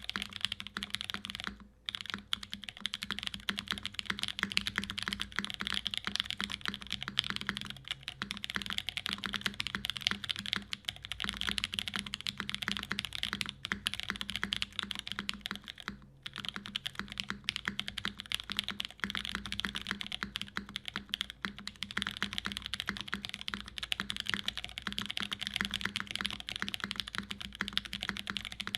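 Fast continuous typing on a custom mechanical keyboard: lubed Pewter linear switches in an aluminium plate, with GMK keycaps. The keystrokes come in a dense stream, with brief pauses about two seconds in and again about halfway through.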